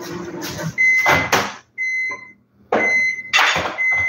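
A microwave oven running with a steady hum that stops about a second in, then beeping four times, about once a second, to signal the end of its 30-second heating cycle. Loud bursts of handling noise come between the beeps.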